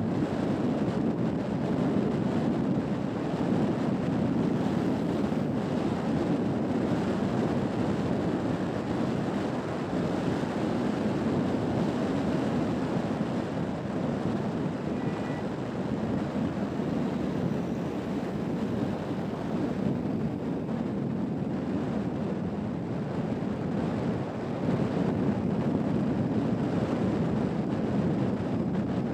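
Steady rumble of tyre and wind noise from a vehicle driving at speed, with no other sound standing out.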